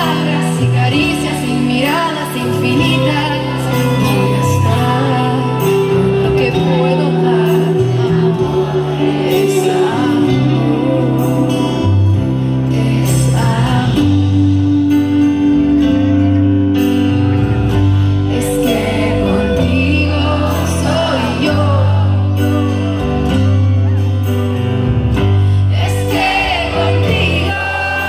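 Live pop band music with a sung lead vocal over steady bass notes and a regular beat.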